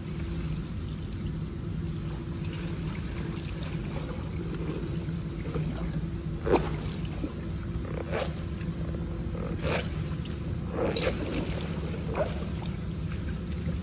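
Steady low hum of an indoor pool hall's machinery. Over it come a few short rustles and knocks as a wet drysuit is pulled off and handled, the sharpest about six and a half seconds in.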